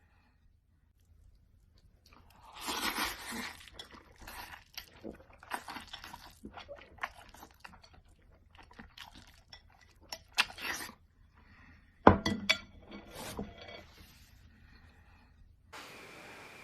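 Someone eating: irregular crunching and chewing, with a few sharp clinks and knocks of tableware, the loudest knock about twelve seconds in.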